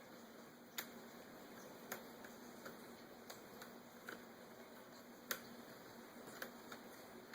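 Faint, irregular clicks and ticks of a small screwdriver and tiny screws being fitted into a laptop screen's frame, the two sharpest about a second in and about five seconds in.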